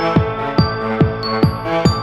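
Electronic background music with a steady beat of falling bass hits, sustained tones and short high chiming notes.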